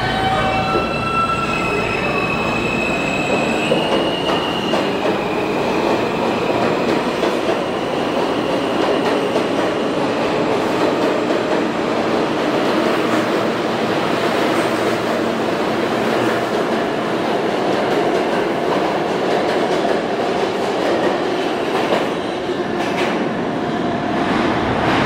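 R160 New York City subway train pulling out of the station: its motors whine in stepped tones that rise in pitch over the first few seconds as it accelerates. This gives way to a steady rumble of wheels on rail, with clacking over the rail joints and some wheel squeal as the cars pass.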